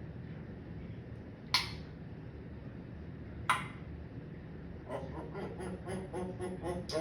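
Pet parrot: two sharp clicks about two seconds apart, then, about five seconds in, a rapid run of short repeated calls, about five a second.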